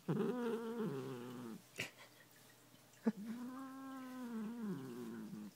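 Long-haired domestic cat growling in two long, low, drawn-out yowls, the second steady and about two seconds long, with a short click between them. The growling is the cat's protest at being brushed.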